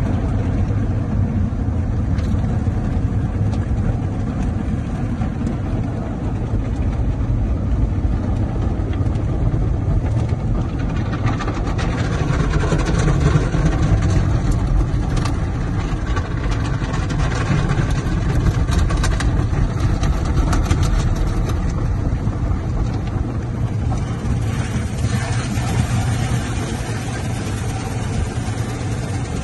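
Automatic tunnel car wash heard from inside the car's cabin: a steady low rumble of the wash machinery and water. From about ten seconds in to past twenty, a louder spraying hiss with many quick knocks as the wash brushes and jets beat against the body.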